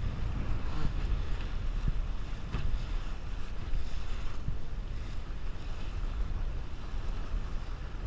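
Heavy wind buffeting the microphone with a low, steady rumble, over water rushing and splashing along the hull of a Sunfish sailboat moving fast and heeled in strong gusts, with spray slapping up off the bow every second or so.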